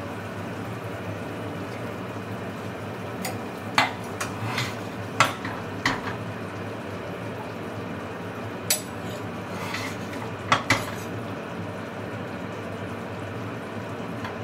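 A metal spoon clinking and scraping against a pan and plate as chicken curry is served out: about ten separate clinks, the sharpest about four, five and ten and a half seconds in, over a steady low background hum.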